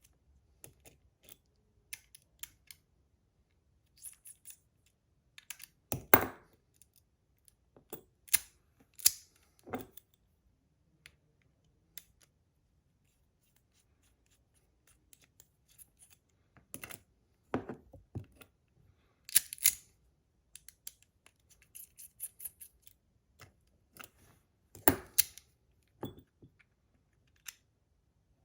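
Scattered small clicks, knocks and short scratchy snips from a magnetic fidget slider being taken apart and adjusted by hand, with silent gaps between. The louder knocks come about six and nine seconds in, around seventeen to twenty seconds, and again near the end.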